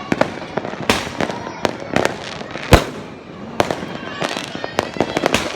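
New Year fireworks going off: a rapid, irregular series of sharp bangs over a steady crackle, with the loudest bang about two and a half seconds in.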